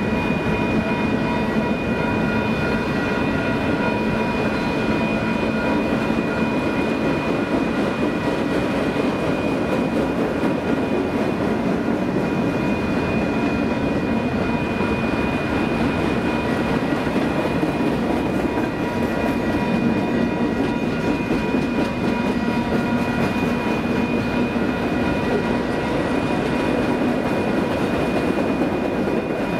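Freight train's autorack cars rolling past: a steady rumble of wheels on rail, with several steady high ringing tones over it.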